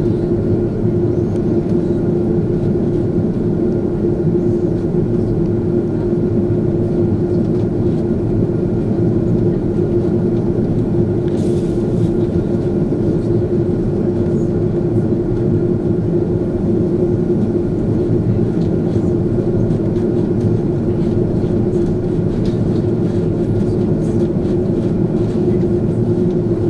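Cabin noise of an Airbus A330-200 taxiing, heard from inside the cabin: a steady rumble of the jet engines at low taxi power with a constant hum running through it.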